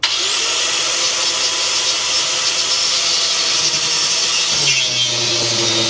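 A handheld power tool switched on abruptly and running loud and steady with a high whine. About four and a half seconds in its pitch drops and a lower hum comes in.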